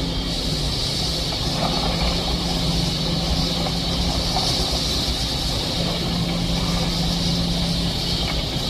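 Excavator diesel engine running steadily, with a constant high hiss over it.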